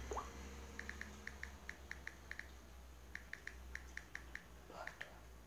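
Faint smartphone touch-keyboard key clicks from typing a message with a thumb: quick runs of light, high ticks, several a second, with short pauses between the runs.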